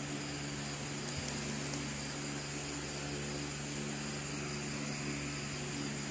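Steady background hum with an even hiss, with a few faint ticks about a second in.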